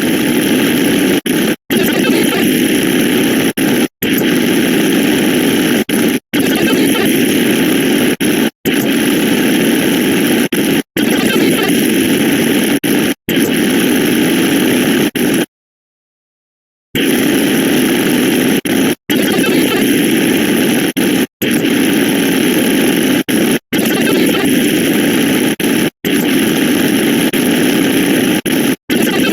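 A loud, dense cacophony of many sound effects layered on top of one another into a harsh wall of noise, broken by very short dropouts about every two and a quarter seconds and by a silence of about a second and a half near the middle.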